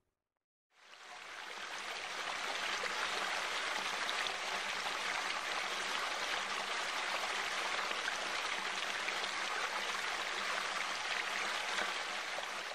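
Water spilling over a small stone weir into a pond, a steady rushing trickle that fades in about a second in.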